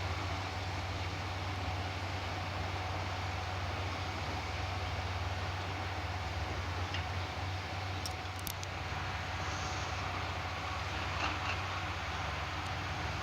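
Diesel engines of a tractor and potato harvester running steadily: a constant low drone under even mechanical noise, with a few sharp clicks about eight seconds in.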